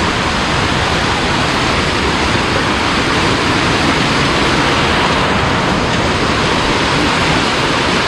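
Rocky stream rushing over stones, a loud, steady wash of water.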